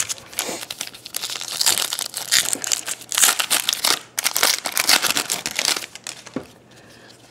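A foil trading-card pack wrapper being torn open and crumpled by hand: a dense, crackly crinkling that dies away about six seconds in.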